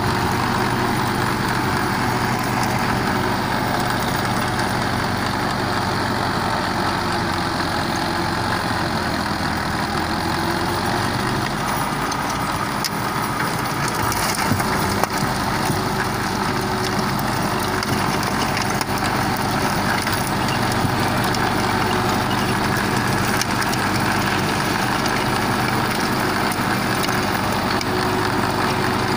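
Tractor engine running steadily under load while driving a heavy-duty 48-blade rotary tiller (rotavator) through soil. A couple of brief knocks sound about halfway through.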